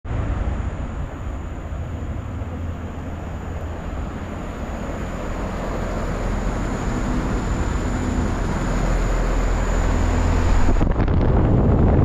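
LG 8.5-ton commercial heat pump outdoor unit running: a steady rush from its condenser fan over a low hum, growing louder as the microphone closes in on the fan grille. A faint high whine stops near the end.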